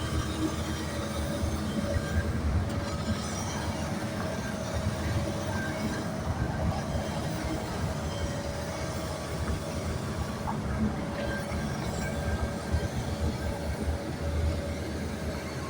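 A large engine running steadily: a dense low rumble with a constant hum above it.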